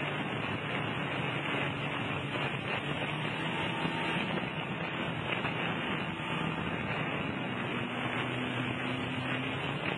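Personal watercraft engine running steadily at speed, mixed with the rush of water spray along the hull.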